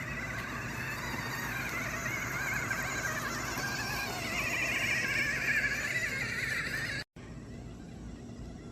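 Electric gear motors of a Huina RC excavator whining as the machine works, the pitch wavering up and down. The sound cuts out briefly about seven seconds in and comes back quieter.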